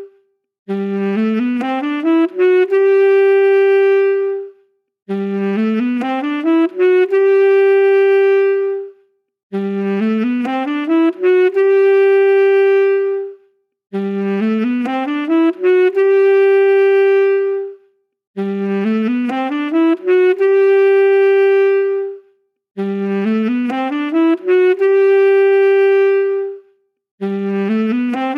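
Solo saxophone playing the same short phrase over and over, about every four and a half seconds. Each time a quick run of notes climbs about an octave to a long held note, followed by a brief gap.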